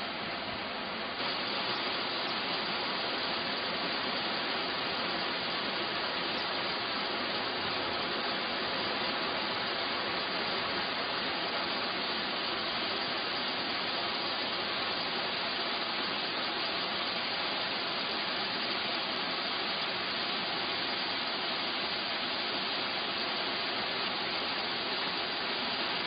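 Large waterfall: a steady rush of falling water with no break in it. It steps up slightly in level about a second in.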